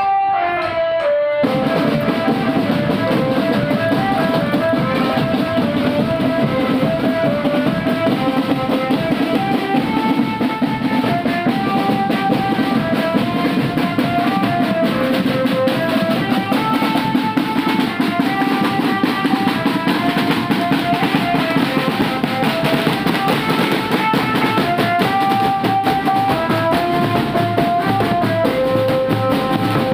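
School marching drum band playing: dense snare and bass drum beats under a melody of held notes stepping up and down, in the manner of a telolet basuri bus-horn tune. The drums come in fully about a second and a half in.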